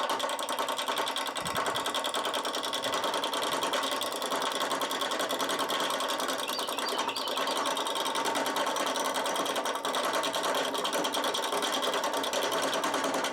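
Wood lathe spinning a purpleheart bowl blank while a turning tool roughs it down: a fast, even, machine-like chatter that runs steadily.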